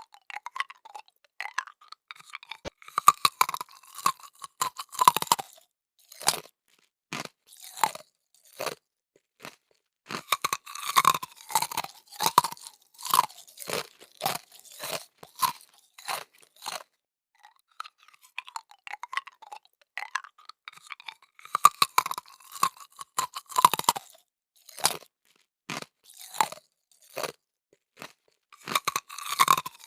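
Close-up chewing of crispy lechon, the fried pork skin crackling in quick crunches that come in clusters, with a few short pauses between mouthfuls.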